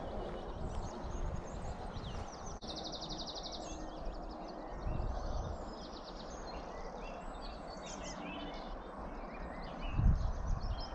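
Small songbirds singing and chirping over a steady outdoor hiss, with a fast, rapidly repeated trill about three seconds in. A short low rumble on the microphone comes near the end.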